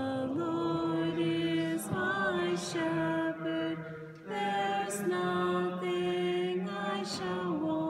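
Chant-like sacred singing in a church, with long held notes in two or more parts that step from pitch to pitch.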